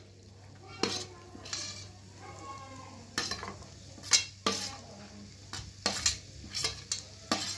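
Slivered almonds frying in hot ghee in a non-stick pan with a soft sizzle. About ten sharp, irregular metal knocks sound against the pan as the utensils are handled.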